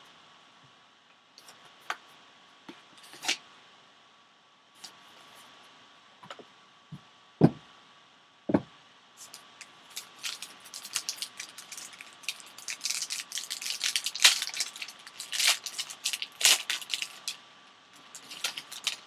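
Handling and unwrapping a sealed trading-card box: scattered light clicks and two soft thumps, then several seconds of dense crinkling of plastic wrapping.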